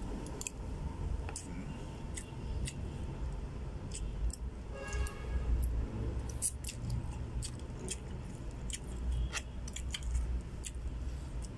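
Metal spoon clicking and scraping against a plastic food container during a meal: scattered sharp clicks over a steady low rumble.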